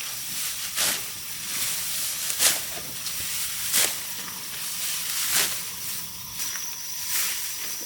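Dry rice stalks swishing in hand harvesting: five sharp strokes, about one every second and a half, over a steady rustle.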